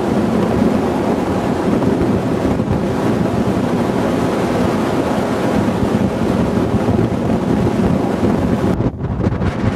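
Strong wind buffeting the camera microphone on an exposed snowy summit: a loud, steady rushing noise that dips briefly near the end.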